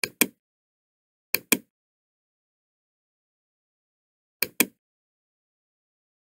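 Computer mouse clicking three times, each click heard as a sharp double tick about a fifth of a second apart, with dead silence between.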